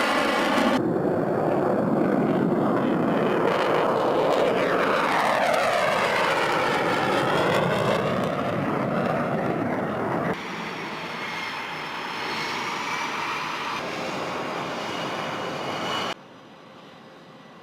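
Fighter jet engines at full power on takeoff, the pitch of the noise sweeping as each jet passes. The sound cuts abruptly about a second in and again around ten seconds, then drops suddenly to a much fainter distant hum near the end.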